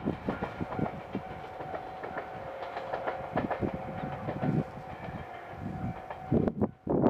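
Limited express electric train running past, its wheels clacking over the rail joints with a low rumble, while a level crossing alarm sounds. The sound drops out briefly near the end and comes back loud.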